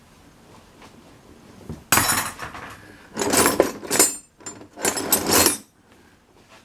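Old metal hand tools clattering and clinking against each other as they are rummaged through in a box, in three loud bursts about two, three and five seconds in.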